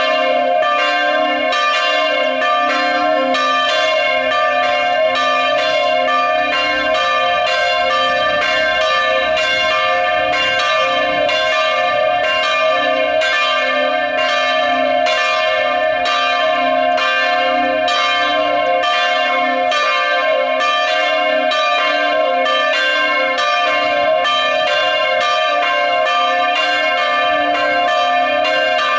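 Chapel bells ringing in full peal (plenum), all the bells sounding together. Their strokes overlap in a steady, even stream of about two strikes a second, each note ringing on under the next.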